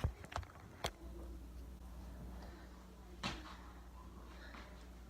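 A few light knocks and clunks as a camera is handled and set down on a ledge, over a faint steady low hum that starts about a second in.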